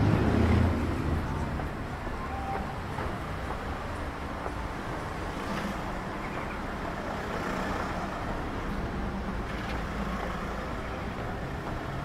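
Urban street traffic noise: a vehicle's low rumble is loudest in the first second, then it settles into a steady background of city traffic.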